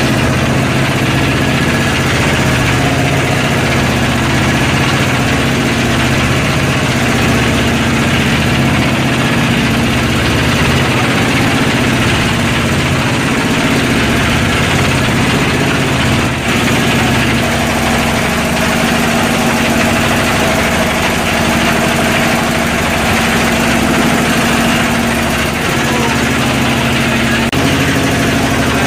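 Small wooden motorboat's engine running steadily under way, a loud low drone with a constant hum, mixed with the rush of water and wind against the hull. Its note shifts slightly a little past halfway.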